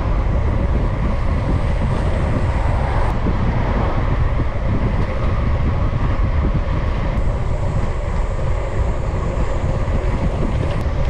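Wind buffeting the microphone of a handlebar-mounted camera on a bicycle riding along a road: a steady, loud rumble of wind noise.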